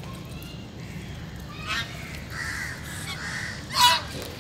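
Domestic geese honking: a few soft calls, then one loud, short honk near the end.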